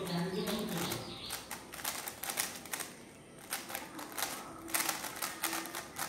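GAN 11 Air 3x3 speed cube being turned fast during a timed solve: its plastic layers make quick, irregular flurries of clicking and clacking.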